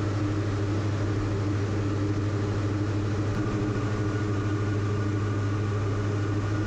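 The Diamond DA42's twin turbo-diesel engines and propellers running steadily in flight, heard inside the cockpit as a constant low hum.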